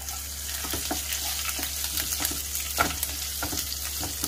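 Cumin seeds, grated ginger and chopped green chillies sizzling in hot oil in a kadhai on a low flame, stirred now and then, with scattered crackles and light knocks of the stirring spoon against the pan.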